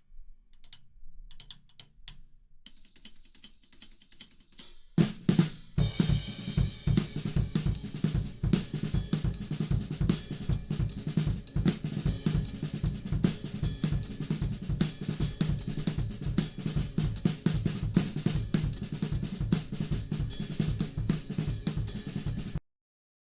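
Recorded drum kit played back for mixing: kick, snare, hi-hat and cymbals playing a steady groove. It starts with a few faint hits, cymbals and hi-hat come in about three seconds in, and the full kit about five seconds in. It cuts off suddenly just before the end as playback stops.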